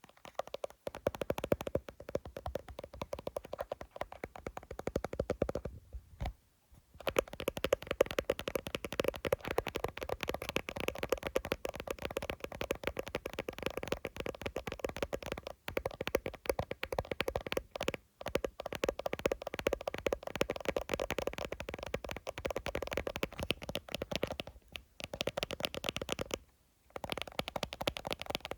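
Fingertips and nails tapping fast on an iPhone's glass and case, a dense run of quick clicks with brief pauses about six seconds in and near the end.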